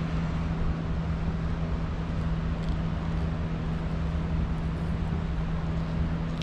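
Steady mechanical hum: a low, even drone with a constant hiss over it.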